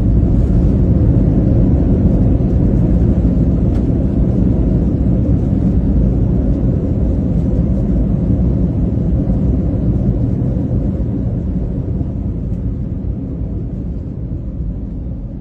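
Airliner landing, heard from inside the cabin: a loud, steady low rumble that fades gradually as the plane slows.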